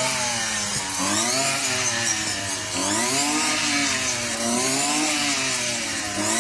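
Petrol brush cutter running while cutting tall grass, its engine pitch rising and falling over and over as the throttle is opened and eased with each swing.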